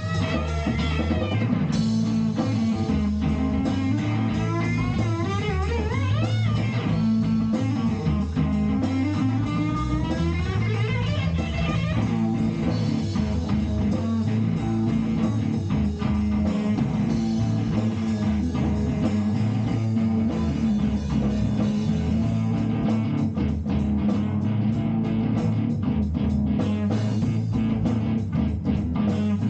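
Live instrumental blues-rock jam: guitar over a steady bass line and drums, with several notes sliding upward in the first dozen seconds and busier, choppier playing in the last several seconds.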